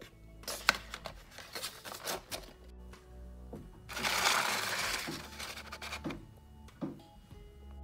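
Soft background music under handling noises from a box of colored pencils: scattered clicks and taps, and a rustling scrape lasting about a second about four seconds in, the loudest sound.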